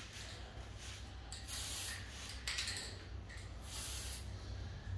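Aerosol spray paint can hissing in three short bursts as paint is dusted onto a figure.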